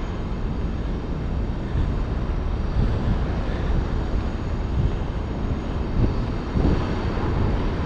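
Steady low rumble of outdoor street noise with wind buffeting the microphone, with a few small bumps.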